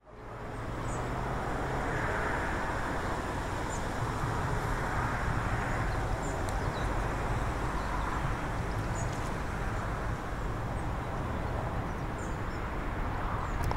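Outdoor street ambience: a steady wash of distant traffic, with faint, short bird chirps now and then. It fades in quickly at the start.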